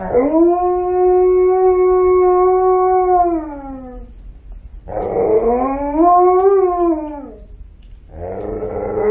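Alaskan Malamute howling for attention: one long, steady howl that falls away at its end, then after a short pause a second howl that wavers up and down, and a third starting near the end.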